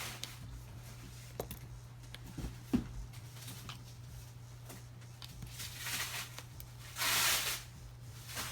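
Light clicks and taps of small repair tools and screws being worked on a smartphone, with a short rustling hiss about seven seconds in, over a steady low hum.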